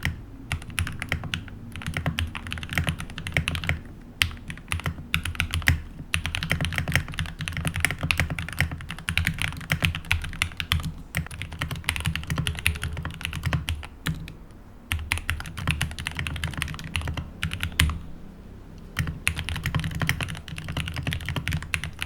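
Typing on a mechanical keyboard with Gateron linear switches: dense, rapid runs of key clacks, with short lulls about 4, 14 and 18 seconds in.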